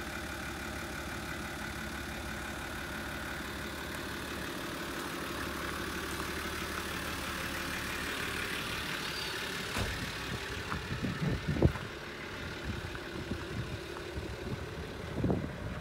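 Nissan Civilian bus's TD42 4.2-litre straight-six diesel idling steadily. From about ten seconds in, irregular low thumps join the idle, the loudest just before twelve seconds.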